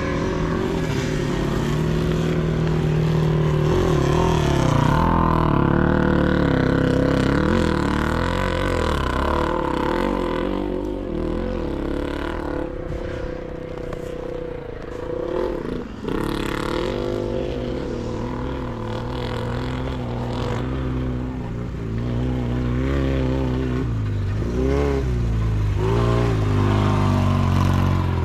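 Sidecar motocross motorcycle engines revving up and down as they race, more than one at once, their pitch repeatedly rising and falling. The sound eases for a few seconds about halfway through, with a single sharp click, then builds again.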